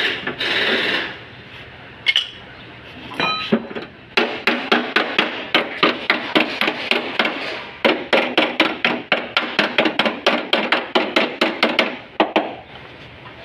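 Hand hammer beating the bent sheet-metal radiator support of a crash-damaged car to straighten it back into shape. A few separate knocks first, then a fast run of metal-on-metal blows, about four a second with a short ring after each, stopping about a second before the end.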